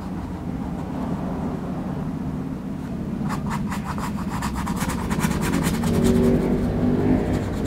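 Flat nylon brush scrubbing acrylic paint onto canvas in quick, scratchy back-and-forth strokes, starting about three seconds in. Under it runs a steady low rumble.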